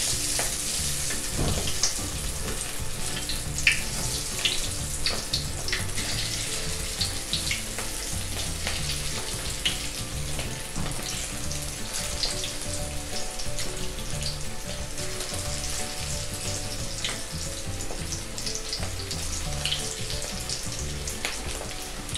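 Breadcrumb-coated tuna veggie balls sizzling in shallow hot cooking oil in a steel wok, a steady hiss with many sharp crackles and pops as more balls are lowered in one at a time.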